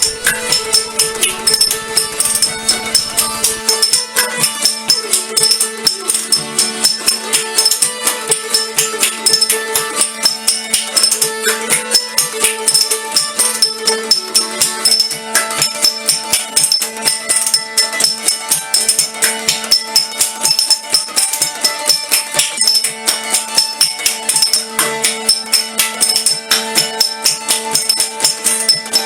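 Music: a fast, even jingling rhythm like a tambourine or shaker, about four to five hits a second, over steady held drone notes.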